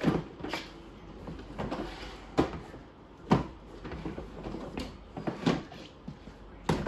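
Hard plastic knocks and clunks as a children's electric quad and its plastic wheels are handled and shifted during assembly: about eight sharp knocks at irregular intervals, the loudest two a little before halfway.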